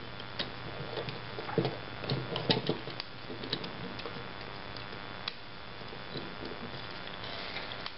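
Small clicks and scrapes of a screwdriver tightening 4-40 screws and nuts into a 3D-printed plastic robot frame, as scattered ticks that are thickest a couple of seconds in.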